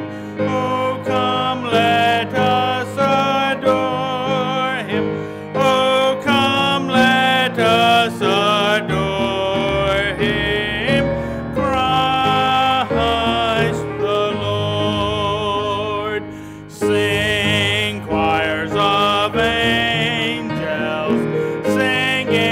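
Church music: singing with instrumental accompaniment, sustained melodic notes with vibrato.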